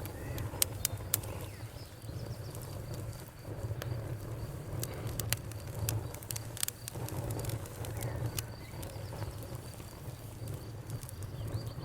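Campfire crackling: irregular sharp pops and snaps from the burning wood, several a second at times, over a steady low rumble of the flames.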